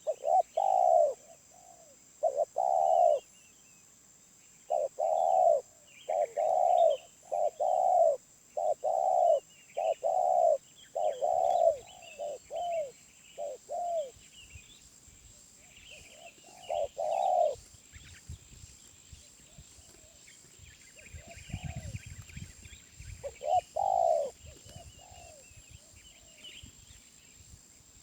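Wild spotted dove cooing: phrases of low, rounded coo notes, dense through the first half, then shorter phrases twice later. Other small birds chirp faintly in the background.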